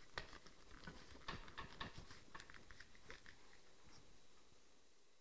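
Faint, irregular crinkling and tapping of a ventilated ridge roll's pleated skirt as fingers press it down into the profile of the roof tiles; the clicks die away after about three seconds.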